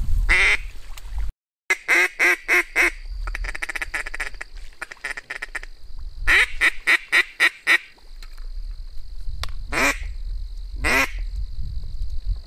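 Mallard-hen style quacking: a falling series of five loud quacks, a fast chattering run, another series of five, then two single quacks near the end, over low wind rumble on the microphone.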